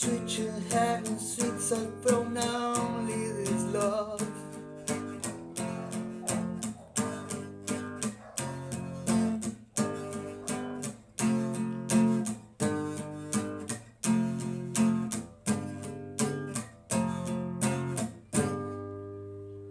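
Acoustic guitar strumming chords in a steady rhythm, with a wavering melody line over the first few seconds. A last strum near the end rings out and fades away, ending the song.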